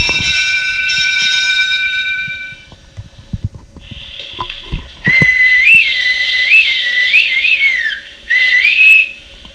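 A high whistle: a steady chord of whistle tones for about two and a half seconds, then a few knocks, then a single high whistle warbling up and down from about five seconds in, with a short break near eight seconds.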